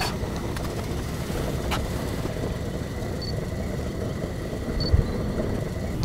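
Steady low rumbling noise with a faint thin high tone above it, a couple of light clicks in the first two seconds and a soft low thump about five seconds in.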